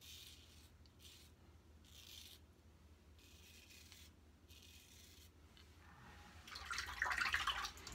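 Fatip Piccolo closed-comb safety razor scraping through Proraso lather and short stubble, in about five short, faint strokes. Near the end comes a louder stretch of running water, as the razor is rinsed at the sink.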